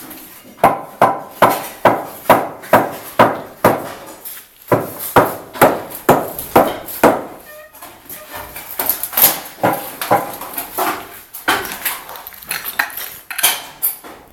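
Repeated hammer blows with a sharp, clinking ring, about two a second for the first seven seconds, then slower and more irregular.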